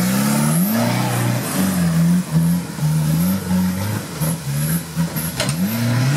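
Modified Suzuki Samurai off-roader's engine revving hard in repeated surges as it claws up a steep dirt climb, the pitch rising and dropping several times.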